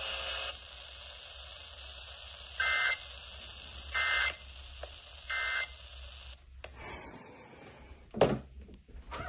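Emergency Alert System end-of-message signal: three short, identical high-pitched electronic warbling tones about 1.3 seconds apart over radio hiss, marking the end of the alert broadcast. The hiss cuts off after about six seconds, and a loud thump follows near the end.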